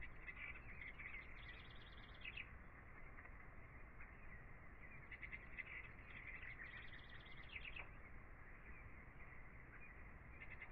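Faint birdsong: small birds chirping in quick trilled phrases, coming in two spells a few seconds apart.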